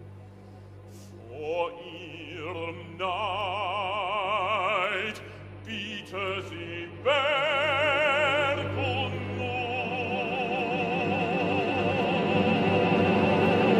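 Bass-baritone operatic voice singing held phrases with wide vibrato over a sustained low orchestral chord. The orchestra grows steadily louder toward the end.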